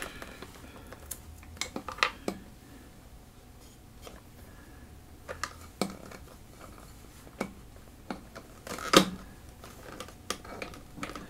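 Scattered light clicks and knocks of guitar pedals and wooden spacers being shifted and pressed into place on a pedalboard, with one sharper knock about nine seconds in.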